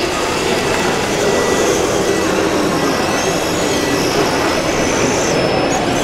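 Steady mechanical running noise of a 1/14-scale radio-controlled crawler dozer driving down a lowboy trailer's ramp, with a few faint high squeaks about halfway through and near the end.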